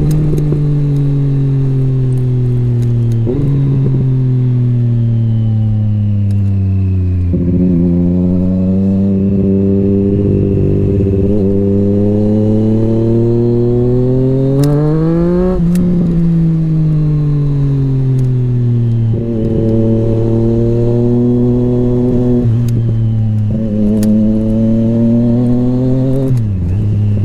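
Motorcycle engine heard while riding. Its pitch mostly falls as the bike slows, with several quick jumps up in pitch at downshifts. Around the middle it revs up steadily for about three seconds under acceleration, then eases off again.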